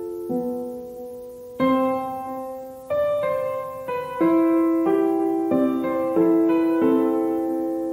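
Background piano music: slow single notes and chords, each struck and left to ring away.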